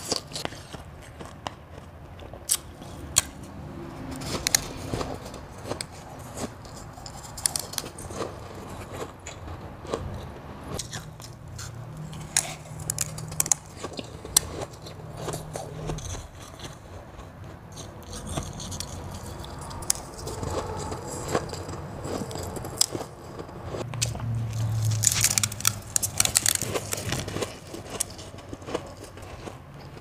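Close-miked biting and crunching of crushed and powdery molded ice, chewed in big bites: a stream of crisp, crackling crunches, with a denser, louder run of crunching toward the end.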